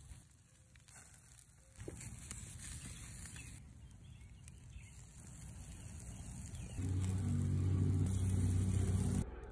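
Food sizzling on a grill grate over a wood fire, a steady hiss broken by a few abrupt edits. A louder low hum joins from about seven seconds in and stops just before the end.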